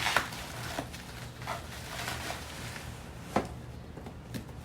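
A few short, sharp knocks and light rustles of parts being handled and set down, the loudest about three and a half seconds in, over a low steady hum.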